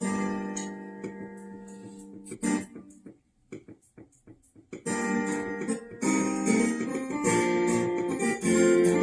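Acoustic guitar instrumental break: a chord rings out and fades, a few sparse plucked notes follow, then steady strumming starts again about five seconds in.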